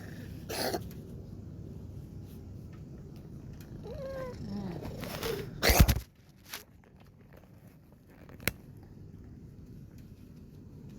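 Domestic cat purring, with a few short sounds of wavering pitch around four to five seconds in, then one short loud cough just before six seconds, after which the purring stops. A single click comes a little later, and the purring slowly returns near the end.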